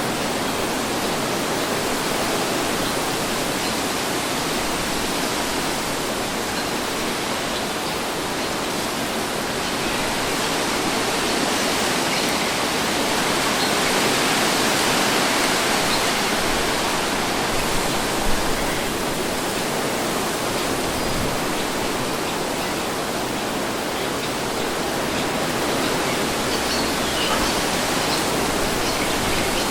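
Steady wind noise, a breeze rustling evenly, swelling gently about halfway through, with a couple of faint clicks just after.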